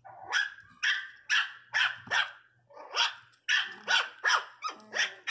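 Miniature pinscher puppies yapping in a scuffle over a bone: about a dozen short, high-pitched barks in quick succession, two to three a second.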